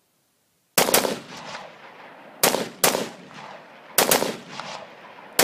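AR-15 rifle fired rapidly, about seven sharp shots mostly in quick pairs, each ringing out with an echo. The shots start a little under a second in, after a moment of silence.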